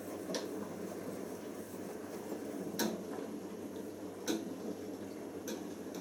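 Siemens IQ1430 front-loading washing machine tumbling a full wash load in its drum: a steady churning rumble, with a few sharp clicks, two louder ones about halfway through.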